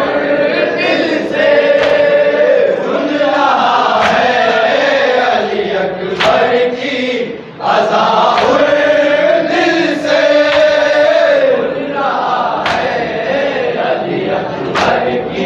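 A group of men chanting a Shia mourning salam (noha-style lament) in Urdu, with sharp slaps of chest-beating (matam) every two seconds or so. The singing dips briefly about halfway through.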